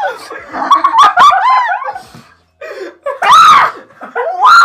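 People laughing and shrieking. Two loud, high, arching yells come about three seconds in and again near the end.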